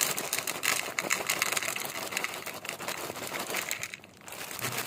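Rapid, dense clicking and crackling of dry cat food, lasting nearly four seconds and dying away near the end.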